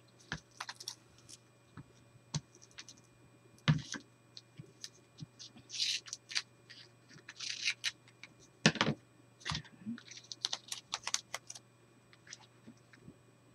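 Hands handling paper and a roll of tape on a craft table: scattered taps, clicks and brief paper rustles as the tape is smoothed down along a paper hinge, with two louder knocks, about a quarter of the way in and about two-thirds in.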